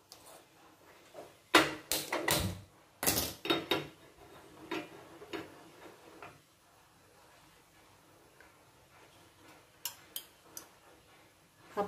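Sharp clicks and clatters of a gas stove burner being lit with a hand-held spark lighter under a small metal pan, in two clusters in the first four seconds, then a few light ticks near the end.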